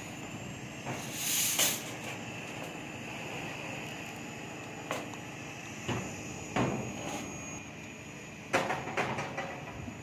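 Long steel rebar rods being hauled up onto a roof slab's formwork, metal scraping and clanking against metal: a scraping rush a second or so in, then sharp knocks about six seconds in and a cluster of them near the end.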